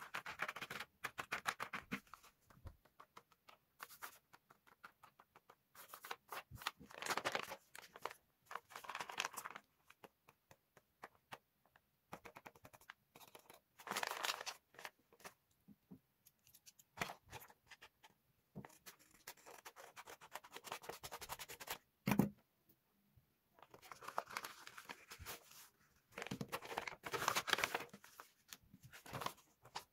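Sheets of paper rustling and sliding as a folded, hand-made paper booklet and its cards are opened and handled. The rustling comes in irregular bursts with short pauses, and there is one sharp knock about three-quarters of the way through.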